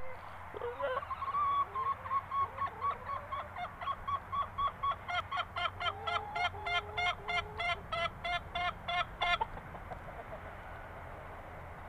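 Poultry calling in a fast, even series of short honking notes, about four a second for some nine seconds. The notes grow louder about halfway through, then stop abruptly.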